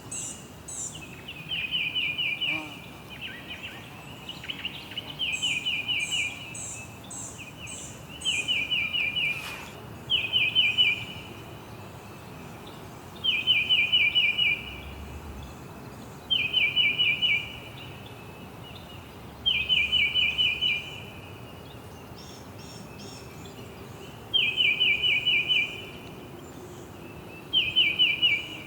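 A songbird repeating a short, fast trilled phrase about every three seconds, each trill lasting about a second. A fainter, higher run of quick notes from another bird comes in a couple of times, over steady background hiss.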